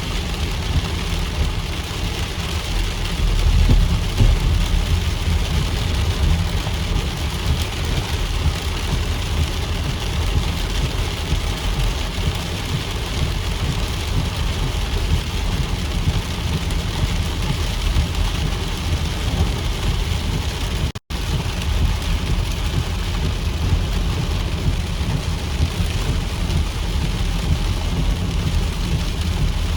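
Heavy rain falling steadily, with a strong low rumble underneath. The sound cuts out for an instant about two-thirds of the way through.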